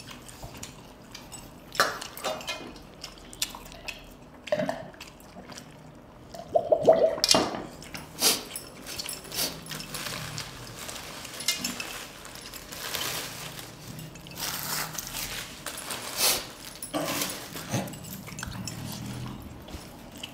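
Close-up eating sounds: wet, squishy chewing and fingers working through curry and rice, with scattered clicks and clinks against steel plates. A louder burst comes about seven seconds in.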